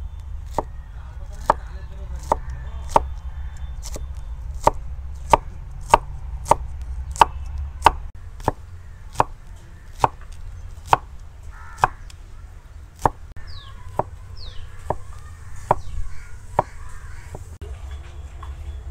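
Kitchen knife chopping banana flower florets on a wooden cutting board: sharp, evenly spaced knocks about one and a half a second, stopping near the end.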